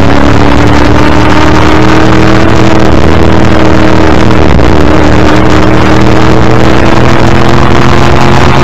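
XD Group C Ford Falcon's 351 Cleveland V8 racing engine pulling hard in one gear, its pitch rising slowly and steadily. It is heard loud from the car's front bumper.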